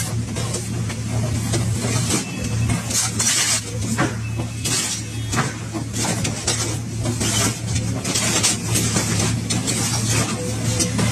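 Excavator engine and hydraulics running with a steady low hum while its hydraulic grab crushes and tears a scrapped car body, giving irregular metallic crunching, cracking and scraping.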